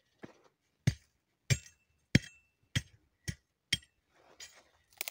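Metal blade of a hand hoe striking hard, dry, stony soil six times, about one stroke every half second. Each stroke is a sharp knock with a brief metallic clink.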